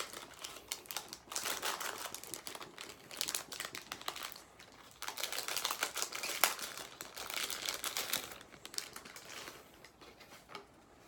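Packaging being handled and opened by hand: crinkling and rustling with many small clicks, in bursts with short pauses, dying away near the end.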